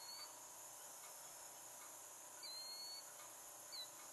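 Faint outdoor insect drone with a bird calling: a thin, high whistled note at the start, a longer one about halfway through lasting about half a second, then a short falling chirp near the end.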